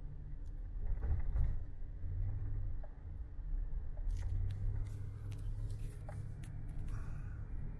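Road and engine noise inside a moving van's cabin: a steady low rumble, with a scatter of sharp clicks from about four seconds in.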